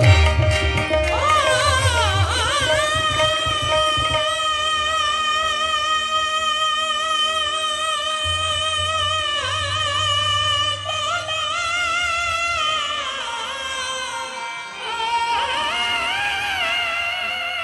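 Live qawwali music: a lead singer holds long, wavering notes over the accompaniment. Tabla drumming plays in the first two seconds and again for a few seconds near the middle.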